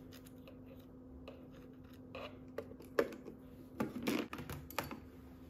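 Metal tweezers and a clear plastic enclosure being handled: a handful of light clicks and scrapes, mostly in the second half.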